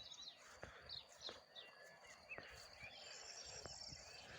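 Faint outdoor birdsong: small birds chirping and twittering over a steady high thin tone, with a few soft knocks now and then.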